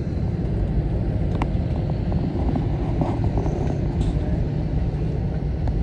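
Steady low rumble of cabin noise inside an Airbus A321neo taxiing after landing, with a few faint clicks.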